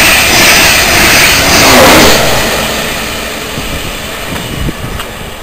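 Express passenger train passing through the station at speed without stopping: a loud rush of wheels on rail and air until the last coach clears about two seconds in, then the noise fades away as the train recedes.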